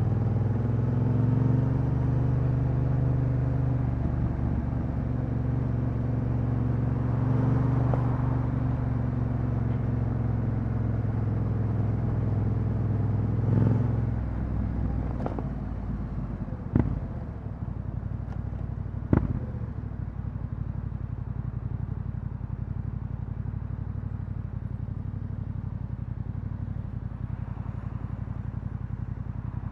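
Yamaha Ténéré 700's parallel-twin engine with an Akrapovic exhaust, heard from the rider's seat: running steadily at a low, even pace, then dropping to a quieter low idle about halfway through. Three sharp knocks sound just after the drop.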